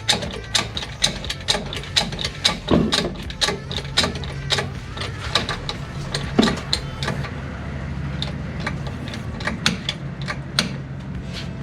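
Hand socket ratchet clicking rapidly, about four to five clicks a second, as it is swung back and forth on a suspension bolt; the clicking slows and becomes irregular about seven seconds in.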